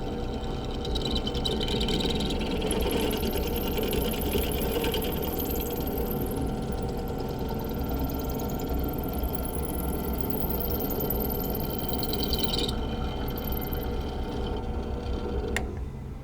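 Benchtop drill press motor humming steadily at low speed while a 3/16-inch bit cuts through the steel of a hatchet head. A high, wavering cutting squeal runs from about a second in until a few seconds before the end. A sharp click comes near the end, after which the sound drops.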